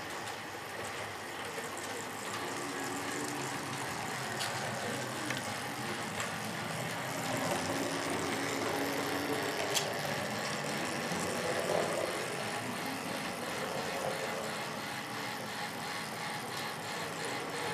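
Steady running of a road-vehicle engine, sounding like a truck or bus engine at low revs, a little louder in the middle, with two faint clicks.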